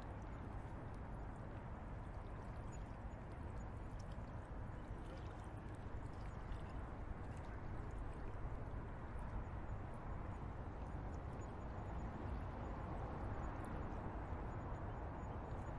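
Riverside ambience: a steady rush of flowing river water with a low rumble underneath and a few faint short ticks.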